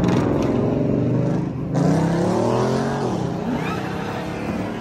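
Car engines accelerating as cars drive past one after another, the engine pitch rising and falling, with a sudden jump in loudness about two seconds in.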